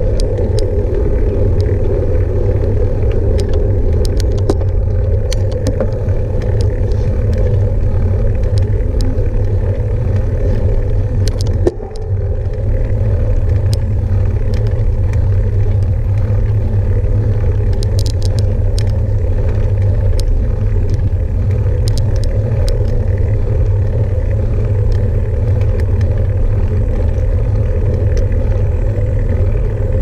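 Steady loud rumble of a vehicle in motion on a concrete road, with wind buffeting the microphone and scattered light clicks and rattles. A single sharp knock, with a brief drop in level, comes about twelve seconds in.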